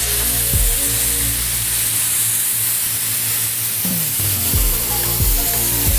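Airbrush spraying paint: a steady hiss of compressed air, with background music underneath.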